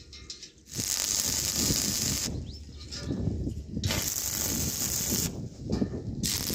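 Electric welding arc crackling in three short welds of about a second and a half each, with brief pauses between.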